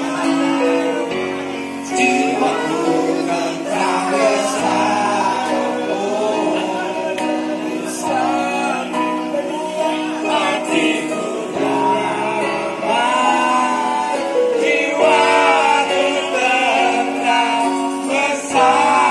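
A song: singing voices over held chords that change every couple of seconds.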